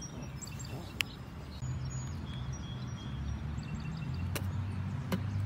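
Quiet outdoor ambience: faint high ringing tones over a steady low rumble, with a few sharp clicks about a second in and near the end.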